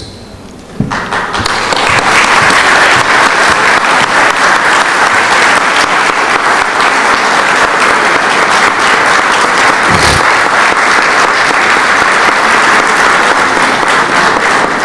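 Audience applauding, starting about a second in, holding steady and easing off near the end.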